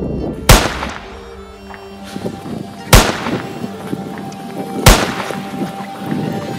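Three pistol shots, about two seconds apart, each a sharp crack over background music.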